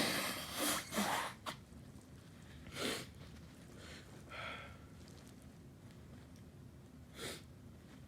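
A person sneezing once, loudly, right at the start, a deliberately induced sneeze. It is followed by a few short breathy sniffs and breaths over the next seconds, one with a brief voiced catch about four and a half seconds in.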